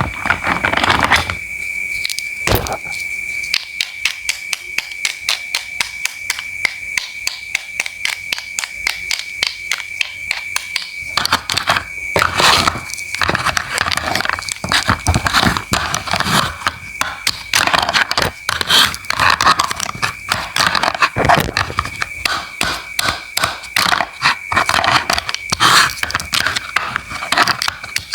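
Knife cutting fruit and vegetables on a cutting board in quick, regular strokes, which grow louder and fuller about eleven seconds in. A steady high-pitched tone runs underneath throughout.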